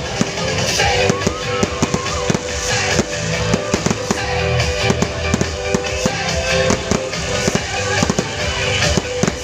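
Fireworks going off in rapid, irregular bangs and crackles, over a song playing in the background.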